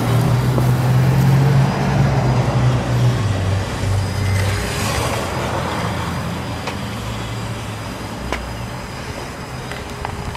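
Motor vehicle engine hum, loudest in the first few seconds, dropping a little in pitch and then slowly fading away.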